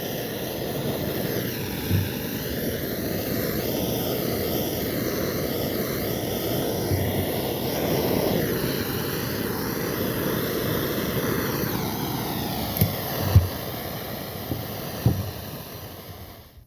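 Blowtorch flame burning with a steady rushing hiss while the hatchet handle is scorched, with a few light knocks; the flame noise fades and stops near the end.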